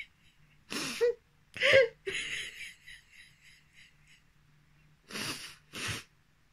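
A woman's short, sharp breathy exhalations and gasps, five bursts, the first two with a brief voiced catch.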